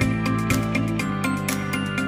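Background music with a steady beat of about four strikes a second over sustained bass notes that change about once a second.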